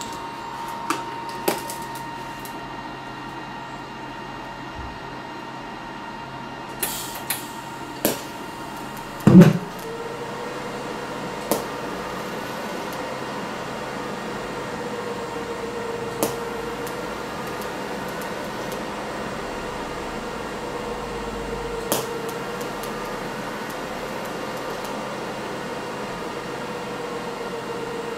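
TIG welding arc from an HTP Invertig 221 running at about 90 amps. There is a loud pop about nine seconds in as the arc strikes, then a steady hum with a slightly wavering pitch, with a few light clicks scattered through.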